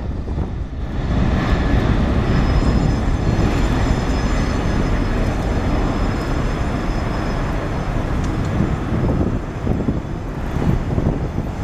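Four Pratt & Whitney PW4056 turbofans of a Boeing 747-400 at takeoff thrust, a steady deep jet rumble with a faint high whine over it for a few seconds in the middle.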